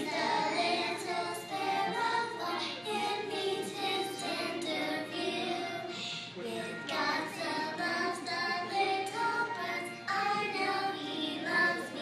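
A group of young children singing a song together, in unison, their melody running on without a break.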